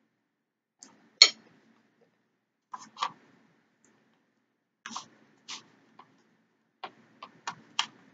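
Close-up eating sounds: scattered short smacks and clicks of chewing and of spoon and chopsticks against the bowl. The loudest comes about a second in, and they come closer together near the end.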